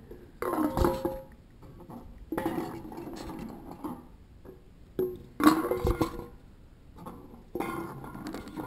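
Aluminium pop cans clinking and clattering against each other and the white plastic pipe hopper as they are loaded into the can crusher, about five separate clanks with a brief metallic ring, the loudest a little past halfway.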